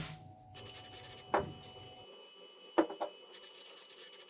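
Handling noise at a workbench: hands moving a flocked sea-moss model tree and small items, with light rubbing and three short knocks, one about a second in and two close together near the end. A faint steady high tone sits underneath.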